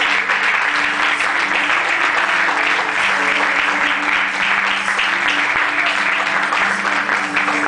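Audience applauding steadily, with sustained music notes held underneath.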